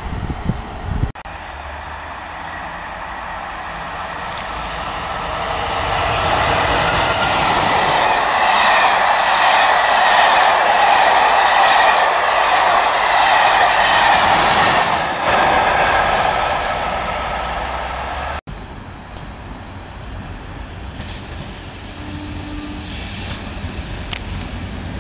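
Train passing close by on the line: wheel-and-rail noise builds for several seconds, holds loud through the middle and fades away. After an abrupt cut, quieter running noise of another train approaching, with a brief low tone a few seconds later.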